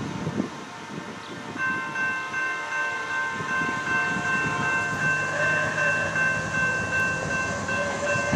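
Norfolk Southern GE Dash 9-44CW locomotive's air horn sounding one long, steady multi-note chord, starting about a second and a half in and held. A low engine drone joins about halfway through. Wind rumbles on the microphone before the horn starts.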